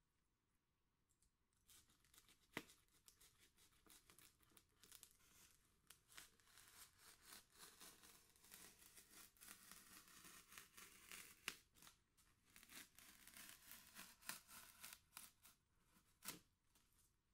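Faint, dense crackling and tearing of a polystyrene foam slab being worked by hand, with a few sharp clicks.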